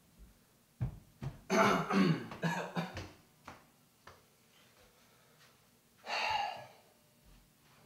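A person coughing and clearing their throat: a rough run of coughs about a second and a half in, then one more short cough about six seconds in.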